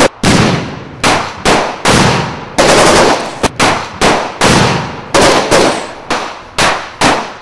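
Gunfire in a shootout: a string of loud shots, roughly two a second, with a quick burst of several near the middle, each one trailing off in an echo.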